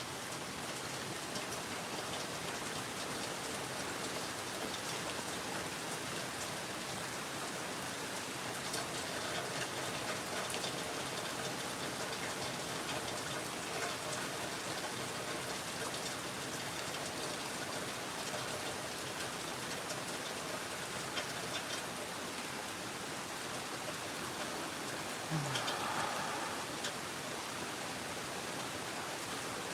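Steady rain falling, with scattered sharp drip ticks through it. A brief, slightly louder sound rises over the rain about 25 seconds in.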